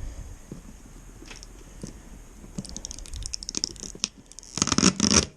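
Scraping and rustling of protective wrapping being pulled off new mini-bike parts, a few faint clicks at first, then busier, with the loudest burst about a second before the end.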